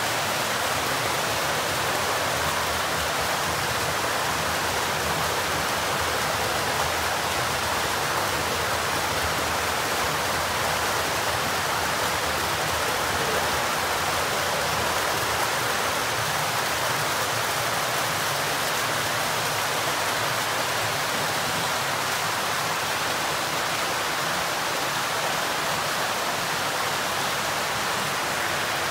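Steady, unbroken rush of running water from a koi holding tank's water circulation.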